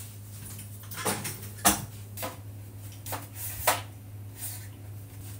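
A handful of short light knocks and clicks, spaced irregularly, from household things being handled, over a steady low hum.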